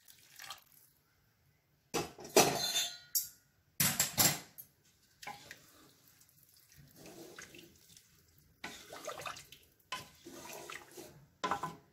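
Hot water poured from a steel vessel into a pot of rice and beans, with two louder splashing pours in the first half, then fainter sloshing as a wooden spatula stirs the liquid.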